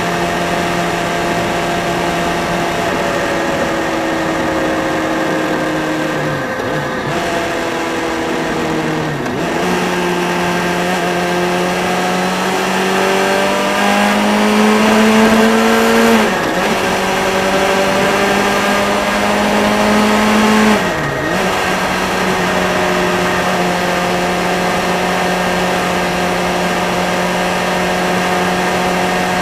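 Motorcycle engine running at cruising speed with wind rush over it. The engine note holds steady, then climbs twice as the bike accelerates, dropping sharply after each climb, about halfway through and again about two-thirds of the way through, before settling at a steady note.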